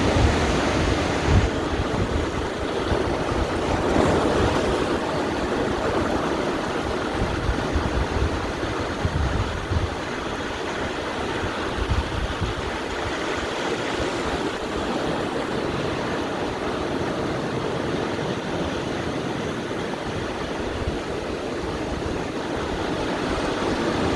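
Sea surf washing onto a beach: a steady, unbroken rush of waves, with wind gusting on the microphone.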